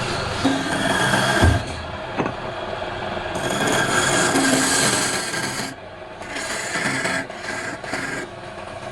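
Palm wood spinning on a lathe, rasping as it is worked. The rasp swells and fades, with a knock about one and a half seconds in, then comes in shorter on-off strokes in the second half.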